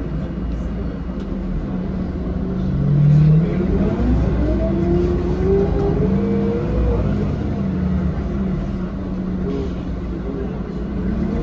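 Mercedes-Benz O500LE city bus accelerating, heard from inside the passenger cabin: a steady low engine drone with a driveline whine that rises in pitch a few seconds in, and rises again near the end.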